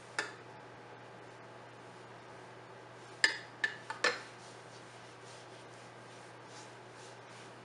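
A spoon clinking against a small ceramic dish of melted butter: one clink at the start, then four quick clinks about three to four seconds in. Afterwards there is faint rubbing as fingers spread the butter over rolled dough.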